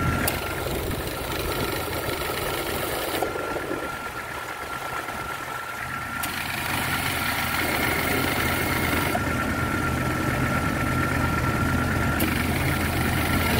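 Jeep XJ engine idling with the AC on, its compressor clutch cycling: a click and a brighter whirring hiss come on roughly every six seconds and drop out about three seconds later. The compressor is short-cycling because refrigerant is low from a leak at the Schrader valves.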